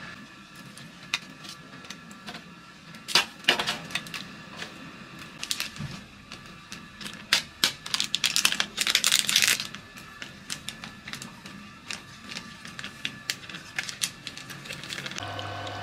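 A plastic drink-powder sachet crinkling and being torn open, a dense crackle about halfway through, with scattered clicks and knocks of handling. Soft background music plays underneath.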